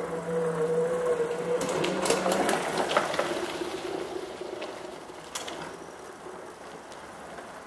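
Geared hub motor of a go-kart converted to 48-volt 350-watt electric drive, whining steadily as the kart drives past. The whine drops somewhat in pitch and fades as the kart moves away. A few sharp clicks come about two to three seconds in and again past five seconds.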